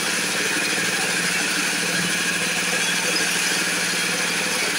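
Heavy-duty grain mill running steadily and loudly, grinding oven-roasted wheat into flour.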